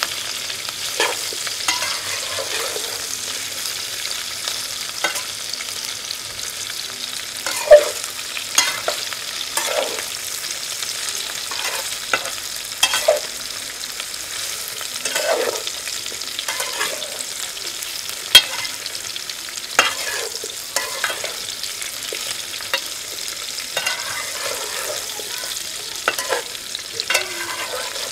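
Bitter gourd pieces frying in a metal pan with a steady sizzle, while a metal slotted spatula stirs and scrapes against the pan every second or two, with a couple of sharper clanks.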